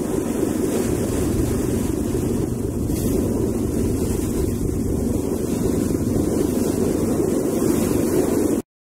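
Steady rushing noise of a ferry under way, with wind on the microphone and water along the hull. It cuts off suddenly near the end.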